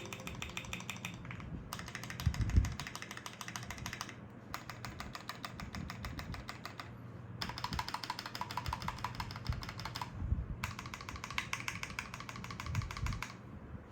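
Fast typing on a Keychron Q3 aluminium tenkeyless mechanical keyboard with stock unlubed Gateron Pro Yellow linear switches, a steel plate with foam, and PBT keycaps. It comes in five bursts of quick key clacks with short pauses between, with a few deeper thuds, the loudest about two and a half seconds in.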